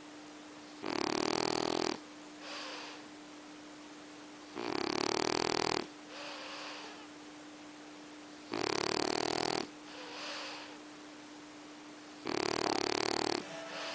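A sleeping pet snoring: four loud snores about four seconds apart, each lasting about a second and followed by a softer breath.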